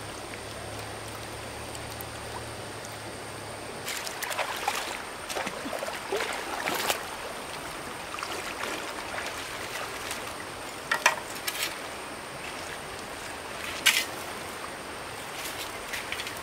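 Stream water running steadily, with irregular short sharp sounds starting about four seconds in, the two loudest in the second half.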